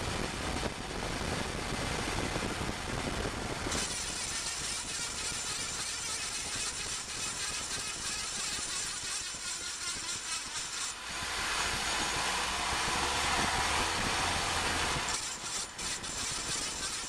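Road, tyre and drivetrain noise from underneath a moving 2008 Ford Focus at its front axle shaft, changing character several times and loudest between about 11 and 15 seconds in. It is the kind of cold-start axle noise that the owner traced to a broken seal spring rubbing on the front CV axle shaft by its center bearing.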